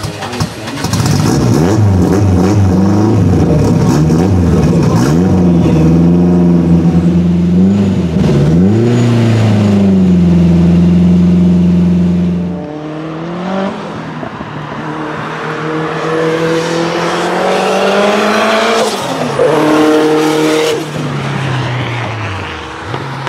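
A rally car's engine revved hard at a standstill: a run of quick throttle blips, a climb, then revs held high for a couple of seconds before they drop sharply about halfway. After that the car is heard running on the track, pulling up through the gears and easing off near the end.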